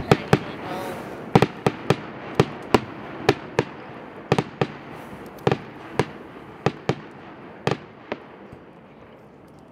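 Fireworks shells going off in a quick, irregular run of about twenty sharp bangs, thinning out and stopping a little before the end.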